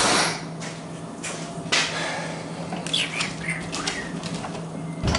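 A Stihl RB 200 pressure washer being handled and tipped back upright on a work table: a knock at the start, rustling and scraping as it is moved, some clicks, and a thump near the end. A steady low hum runs underneath.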